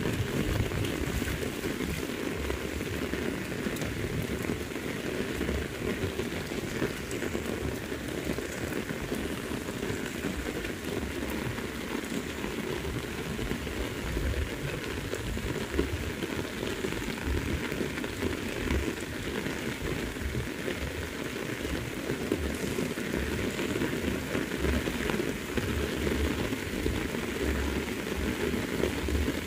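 Heavy rain falling steadily on the ground and the surroundings.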